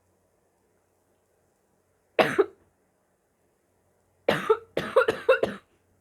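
A sick person's harsh, barking coughs: one about two seconds in, then a fit of one cough followed by a quick run of about four more near the end.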